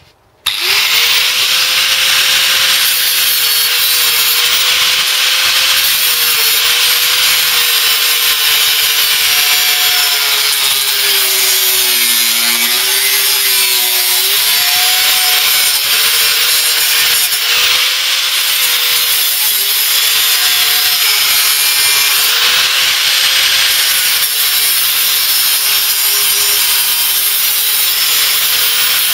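Angle grinder with a thin cutting disc slicing through sheet steel, starting up about half a second in and then running loud and steady. Its motor whine sags in pitch as the disc is pressed into the cut, most clearly around the middle.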